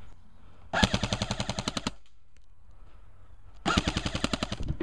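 Airsoft rifle firing two full-auto bursts, each about a second long, a rapid even rattle of about fifteen shots a second, the second burst starting about three seconds after the first.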